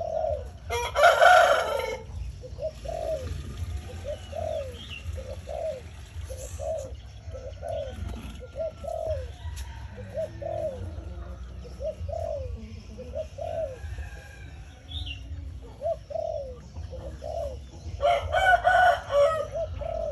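Spotted doves cooing over and over, a short falling note about every 0.7 s. A rooster crows loudly twice, about a second in and again near the end.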